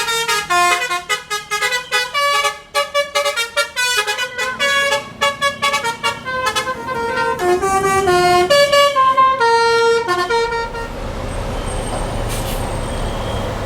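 A tour bus's multi-tone telolet horn playing a rapid tune of stepped notes for about ten seconds, then giving way to the rumble of the bus's engine and road noise.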